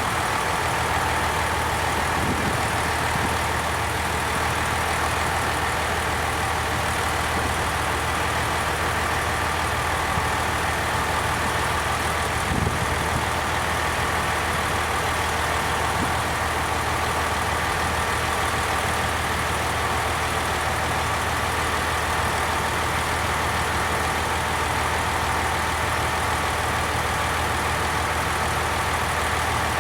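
Diesel railcar engine idling steadily, an even drone with no change in pitch or level.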